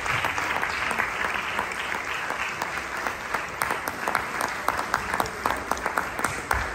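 Audience applauding. The dense clapping thins out in the second half, so that single claps stand out.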